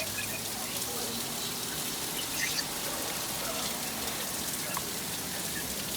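Heavy rain falling steadily, an even hiss of rain on surfaces during a thunderstorm.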